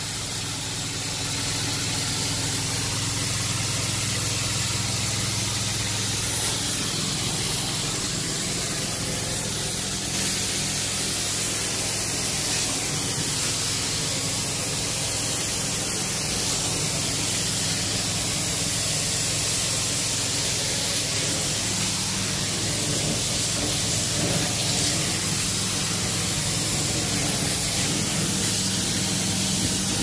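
Carpet-cleaning extraction wand worked in strokes across the carpet: a steady hiss of spray and suction over a low, even machine hum.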